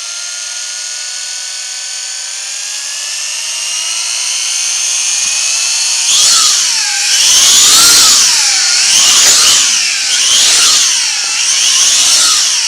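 W606-5 Flanker toy quadcopter's electric motors and propellers whining under auto takeoff. The whine climbs slowly in pitch for about six seconds. From there it rises and falls over and over, about every second and a half, getting louder and softer as the throttle surges up and down.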